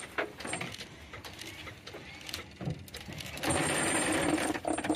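Metal clinks and chain rattles as a green navigation buoy and its mooring chain are handled over the side of a work boat. About three and a half seconds in, a louder steady noise with a thin high whine starts and runs nearly two seconds as the buoy is lowered toward the water.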